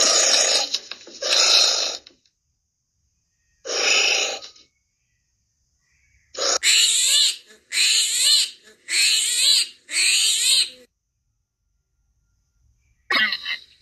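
Recorded animal calls: three breathy huffs, taken for a giant anteater, in the first few seconds. These are followed by a run of five short squealing calls that bend in pitch, and more squeals start near the end.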